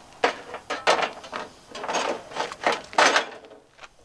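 Knocks and scrapes as a portable gas grill on a steel slide-out tray is pushed along its drawer slides into a compartment cut in a school bus's side. About seven sharp strikes come over roughly three seconds, then stop.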